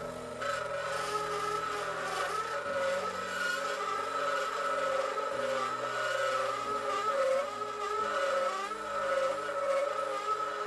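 Metal Master MML 2140VE benchtop lathe running at 550 rpm while a parting tool cuts through a welded steel pipe with a 3.5 mm wall. The cut gives a steady, slightly wavering whine with a rasping hiss.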